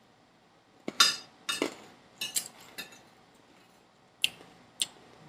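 A fork clinking and tapping against a metal food tray: a quick run of sharp clinks in the first few seconds, then two more about half a second apart near the end.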